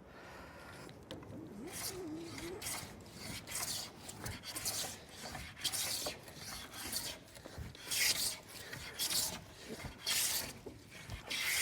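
Hand smoothing plane taking fine shavings off the leading edge of a wooden door, putting a slight bevel on it. Short rasping strokes repeat about once a second.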